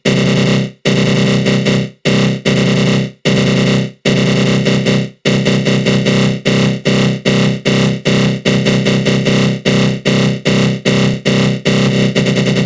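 Synthesized 'attack growl' sound effect: a harsh, buzzing synth tone through a flanger, chopped into repeated pulses. The pulses come about once a second at first, then quicken to about three a second from about five seconds in.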